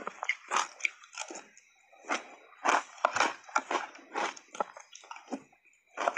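Biting and chewing refrozen shaved ice: a quick run of separate crunches, roughly three a second, with a short break near the end.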